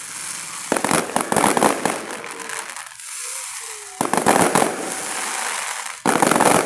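Fireworks bursting in three loud volleys, about a second in, four seconds in and six seconds in, each a sudden dense rattle of crackles that fades into a rumbling echo before the next.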